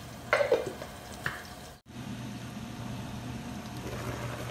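Chicken in soy sauce and water simmering in a covered pan: a steady bubbling hiss over a low hum. A brief clatter comes about a third of a second in, and the sound cuts out for an instant near the middle.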